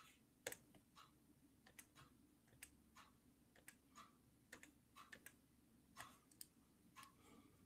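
Faint, irregular clicking at a computer workstation, about two light clicks a second at uneven spacing.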